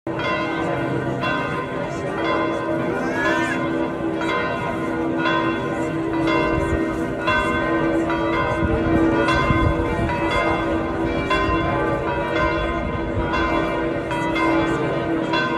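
Large church bells, those of St. Peter's Basilica, ringing in a steady peal of about one strike a second, each stroke leaving a long ringing hum under the next.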